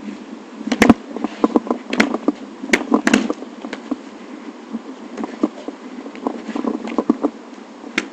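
Metal sparring swords striking each other in a bout: a run of sharp clacks and clashes. Several loud ones come in the first three seconds, with more scattered later, over a steady background hiss.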